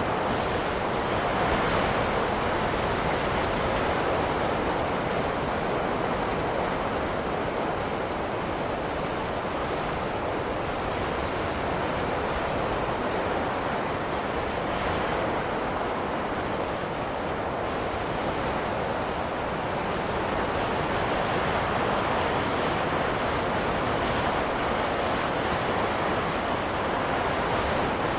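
Wind rushing steadily, slowly swelling and easing in strength over several seconds.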